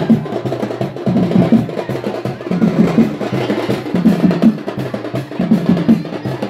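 Frame drums beaten fast, the strokes coming in dense bunches about every second and a half.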